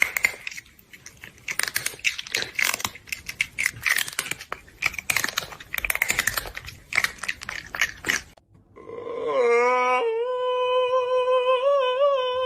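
Rapid, irregular crunching like chewing on something crisp, for about eight seconds. Near the end this gives way to a steady held tone with a slight waver.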